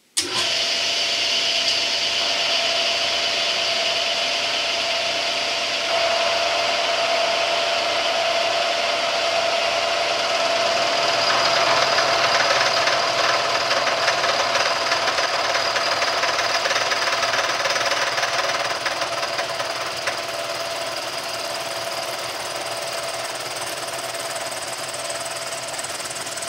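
Bridgeport milling machine switched on, then running steadily at about 700 RPM with a steady whine as a 0.625-inch end mill takes a full-depth, full-width slotting cut in an aluminum block, the heaviest pass of the job. The sound grows louder about six seconds in and again around eleven to thirteen seconds, as the cutter works deeper into the metal.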